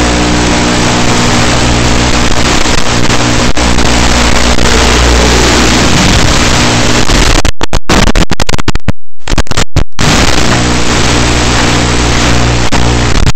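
Loud, steady buzzing hum and hiss carried by the FPV quadcopter's video-link audio. A tone slides down in pitch a little before the middle and rises again near the end, and the sound drops out abruptly several times a little past the middle.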